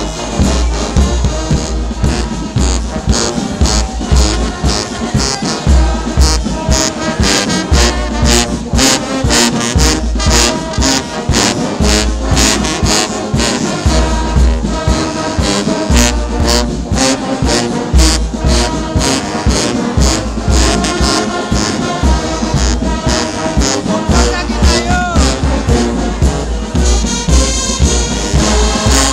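Brass band music with trombones and trumpets over a steady drum beat and heavy bass, playing without a break.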